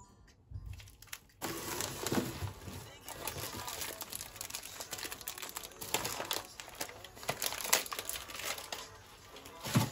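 Plastic food bags crinkling and rustling as they are handled and pulled out of a cardboard box, starting suddenly about a second and a half in, with a louder knock near the end.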